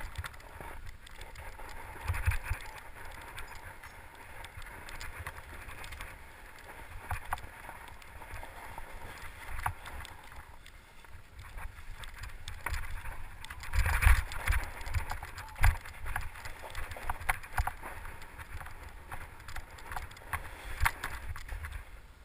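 Mountain bike ridden over a rocky, leaf-strewn and snowy trail: tyres rolling over rocks and leaves, the bike rattling and knocking over bumps, with wind rumbling on the microphone. A cluster of loud knocks comes about 14 seconds in, and another hard knock a moment later.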